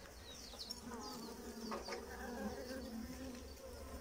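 Honeybees buzzing on the frames of an opened hive: a quiet, low hum that wavers in pitch.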